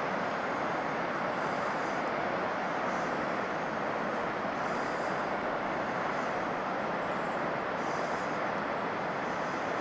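Steady roar of a waterfall, Lower Ebor Falls plunging into its pool: an even rushing noise that holds the same level throughout. Faint high chirps come through now and then.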